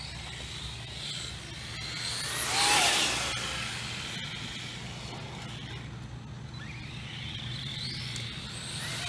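Brushless-converted Arrma Senton RC truck running on 3S: a high electric-motor whine that climbs steeply in pitch as it accelerates, loudest about three seconds in, with another rising whine near the end.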